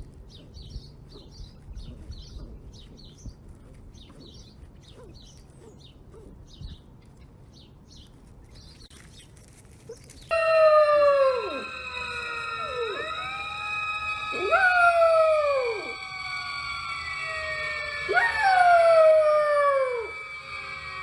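Faint, short, high squeaks. Then, from an abrupt start about halfway through, dogs howling: loud, repeated calls that jump up in pitch and slide down, several voices overlapping, over steady high tones.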